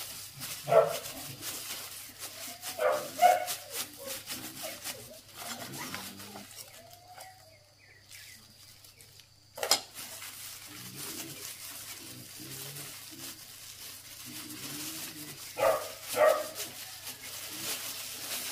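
Short, high animal calls: one about a second in, a pair near three seconds and another pair near the end, with lower calls in between. A single sharp click comes about halfway through, and soft rustling runs under it all.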